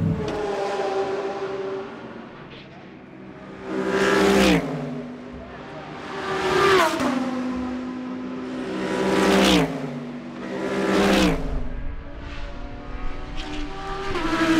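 GT race cars passing one after another at speed, about five loud pass-bys, each engine note dropping in pitch as the car goes by, with fainter cars heard in between.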